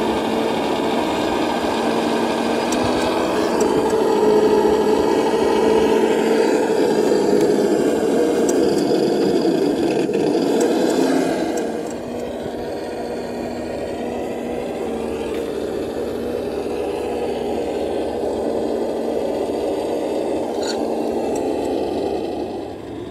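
Traxxas TRX-4 RC crawler driving, its electric motor and gears whirring steadily with some rattle and scrape. It runs louder for the first half and drops in level about halfway through.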